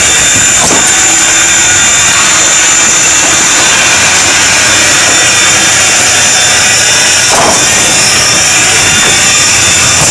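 Strasburg Rail Road No. 90, a 2-10-0 steam locomotive, moving slowly at close range with a steady loud hiss of steam, and a knock about a second in and another near the end.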